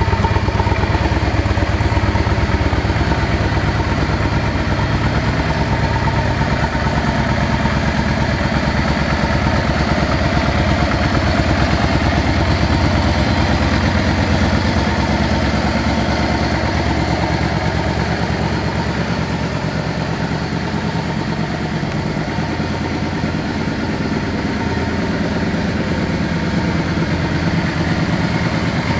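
A 2007 Yamaha V-Star 650 Classic's air-cooled V-twin engine idling steadily.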